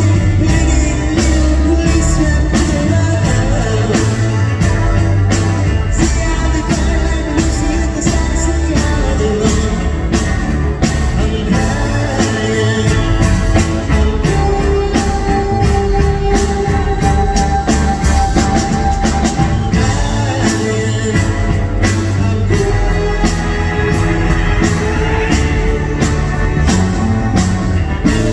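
Rock music: a band with guitar, bass and drums playing a steady beat, with singing.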